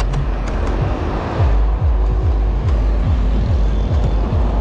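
Riding noise from a moving motorcycle: heavy wind rumble on the microphone over road and engine noise. A low tone falls in pitch over and over, about twice a second.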